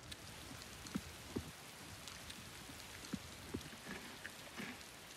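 Steady patter of rain with a few louder drops scattered through it.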